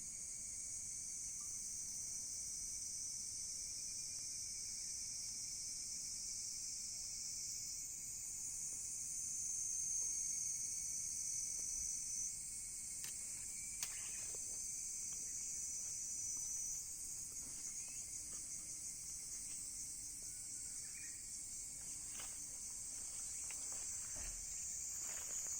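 A steady, high-pitched chorus of insects, crickets or similar, trilling without a break. A few sharp clicks come through around the middle and again near the end.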